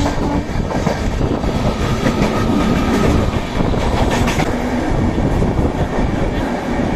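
Train running on the rails at speed, heard close up from a moving train: a loud, continuous rush of wheels on track with clickety-clack knocks over rail joints, as freight wagons pass close by on the next track.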